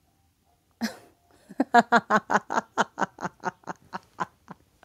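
A person laughing: a sharp breath about a second in, then a long run of quick "ha-ha" pulses, about five a second, that fade out near the end.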